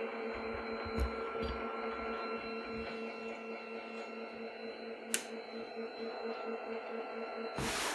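Voyager overhead ceiling lift's electric motor running with a steady hum as it lowers a person in a sling onto a bed. A couple of small clicks come through it, and a short burst of rustling noise comes right at the end.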